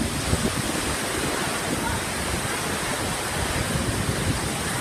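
Strong storm wind and heavy rain in a steady dense rush, with gusts buffeting the microphone in irregular low rumbles.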